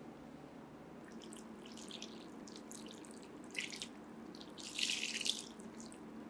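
Water poured onto a bucket of dry clay scraps, splashing and trickling in uneven spurts, loudest about five seconds in. The clay is being slaked for reclaiming.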